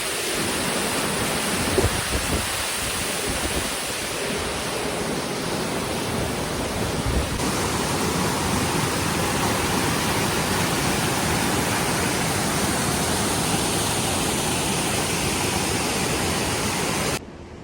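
Waterfall, a loud steady rush of falling water. It changes character about seven seconds in and cuts off just before the end.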